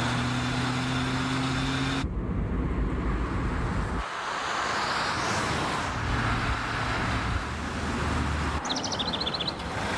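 Motor vehicle engine and road noise: a steady engine hum that changes abruptly about two seconds in, giving way to a broad rushing noise, with a few short high chirps near the end.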